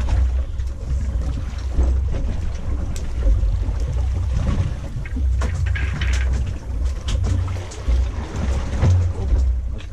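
Wind rumbling and buffeting on the microphone aboard a fishing boat at sea, with water splashing and slapping against the hull every so often.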